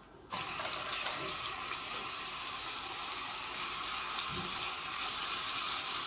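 Chicken-and-carrot fritters frying in hot oil in a pan, a steady sizzle that starts suddenly about a third of a second in and grows a little louder near the end.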